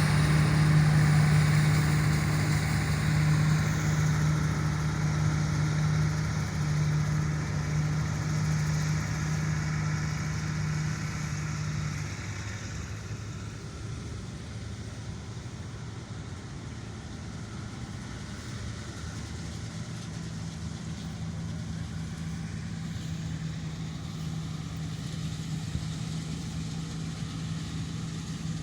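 Combine harvester's diesel engine running with a steady hum. It is loud at first, then fades after about twelve seconds as the machine draws away, and stays fainter to the end.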